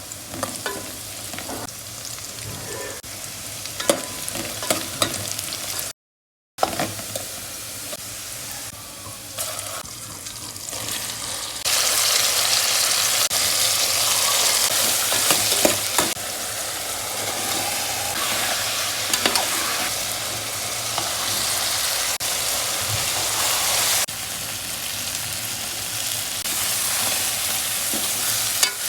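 Food frying in hot oil in a pan, sizzling while a spoon stirs it, with scattered clinks and scrapes early on. The sizzle turns much louder and denser about twelve seconds in.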